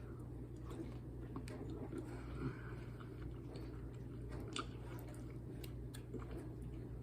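A person chewing a mouthful of shrimp, with small scattered mouth clicks and a couple of sharper ones, over a steady low hum.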